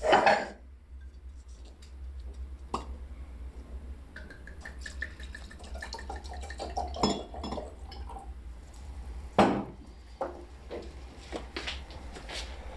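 Scattered clinks and knocks of dishes and glassware, with a sharp clatter at the start and another about nine seconds in, over a steady low hum.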